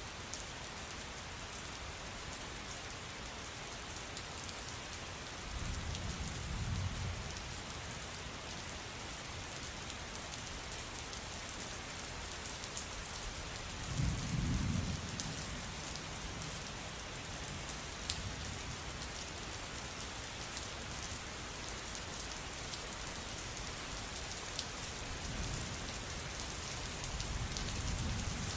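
Steady rain falling, with three low rumbles of thunder; the middle rumble is the loudest.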